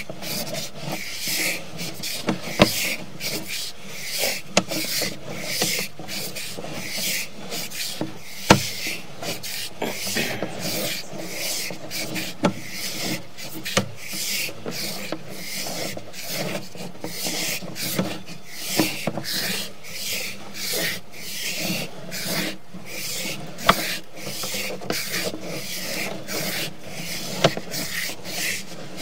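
Sewer inspection camera's push cable being fed down a drain line, rubbing and rasping in a quick, uneven series of strokes about two a second, with a few sharper clicks.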